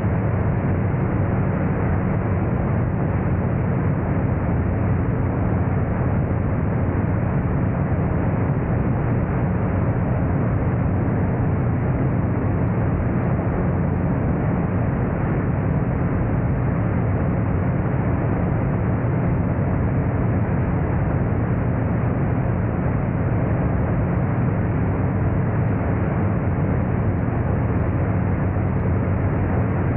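Magni M-16 gyroplane in cruise flight: a steady drone from its engine and propeller mixed with rushing air, heard from a camera mounted outside the cockpit.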